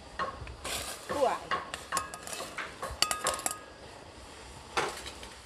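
Sliced pork sausage tipped from a stainless steel bowl into an aluminium saucepan of water: a run of clinks and clatters, the metal bowl ringing briefly against the pan, for about three seconds, then one more clatter near the end.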